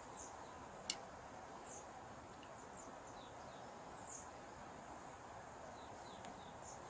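Faint, steady rush of a flowing river, with a few short, high, falling bird chirps scattered through it. A single light click comes about a second in.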